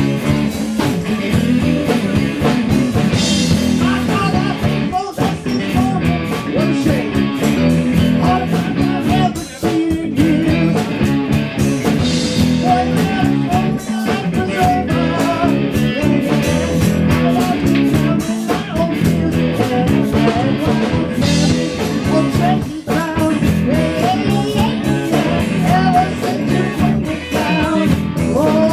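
Live blues-rock band playing: electric guitar over bass and a steady drum beat, with no clear sung words.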